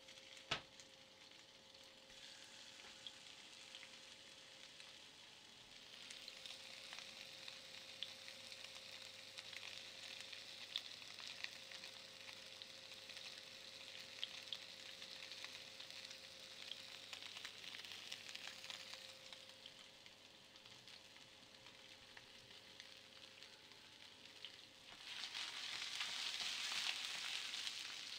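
Kitchen mixing sounds: a faint hiss as flour and then milk go into a glass bowl, then a wooden spoon scraping and stirring flour and milk in the glass bowl, louder over the last few seconds. A sharp click about half a second in, over a faint steady hum.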